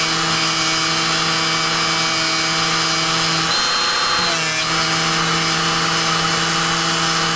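Dremel rotary tool spinning a polishing bob charged with compound against the feed ramp of an M4 barrel extension, a steady motor whine as it buffs out tool marks. Its pitch dips for a moment a little over four seconds in.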